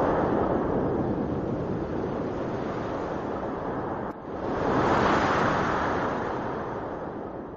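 A steady rushing noise with no tune, dipping briefly about four seconds in, then swelling again and slowly fading out.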